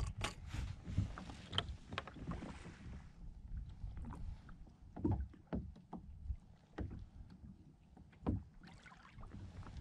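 Water lapping and slapping against a plastic fishing kayak's hull, with scattered light knocks against the hull over a low rumble.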